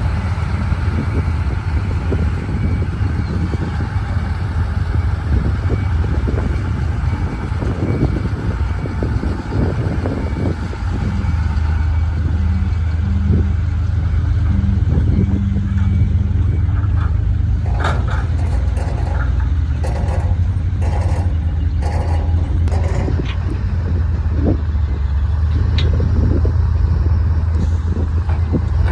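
Heavy diesel earthmoving machinery running with a steady low rumble that gets somewhat louder about eleven seconds in. Through the second half there are scattered sharp metallic knocks and clanks.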